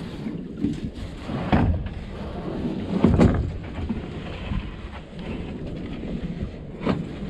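Hollow plastic fishing kayak knocking and scraping against a motorboat's gunwale as it is hauled aboard, with three heavy thumps, over a steady rumble of wind on the microphone.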